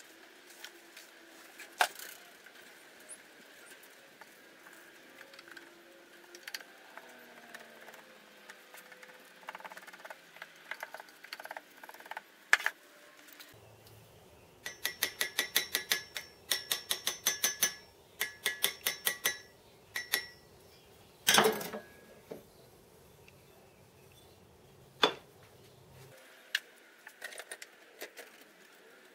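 Rapid metallic tapping: a small steel tool rapping the metal sprue pin standing in a rammed sand mould, to loosen the pin before it is drawn. The taps come about four or five a second in several short runs, each with a brief ring, and are followed by a couple of louder single knocks.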